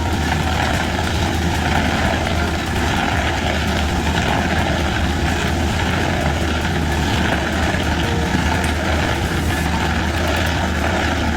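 Heavy machine's engine running steadily, with a constant low hum under a broad rushing noise.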